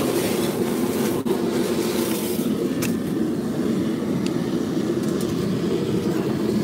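Steady low roar of a gas burner heating the crab-cooking pot, with a few faint clicks over it.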